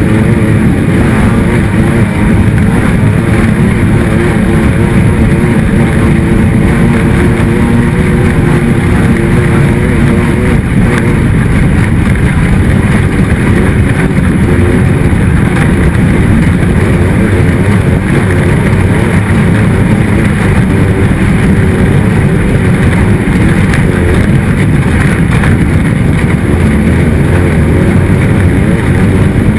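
Off-road race vehicle's engine running hard and loud without a break, its pitch wavering up and down in roughly the first third, then a steady rush of engine and wind noise.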